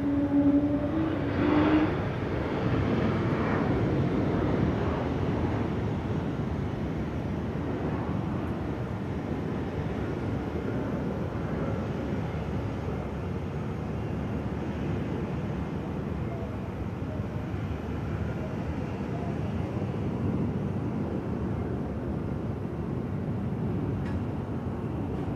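Steady jet-engine noise of airliners on the airfield, from a landed airliner taxiing along the runway. In the first two seconds there is a short humming tone and two brief louder swells.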